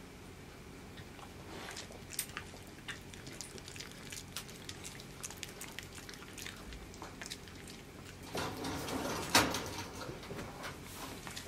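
Two Kai Ken dogs shifting about while being petted by hand: scattered light taps and rustles, with a louder rustling scuffle and a sharp knock about nine seconds in.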